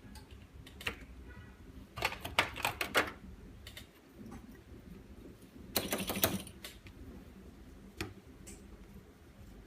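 Light, hard clicking and clattering of small parts being handled on a work surface, in two quick bursts about two seconds in and around six seconds, with single clicks between: the new screen glass and LCD being set into a metal alignment mold.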